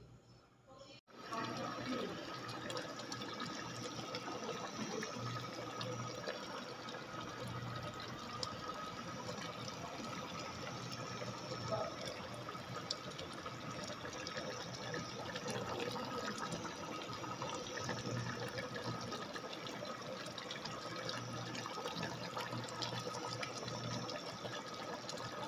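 Pot of coconut milk with pork, long beans and chilies simmering, a steady bubbling and crackling that starts about a second in, with a faint steady hum beneath it.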